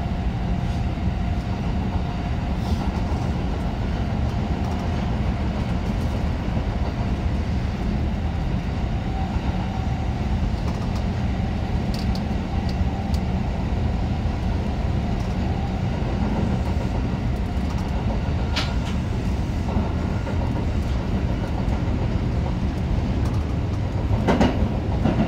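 Osaka Metro Chuo Line subway train running through a tunnel, heard from inside the front car: a steady low rumble of wheels on rail, with a few sharp clicks, the loudest near the end.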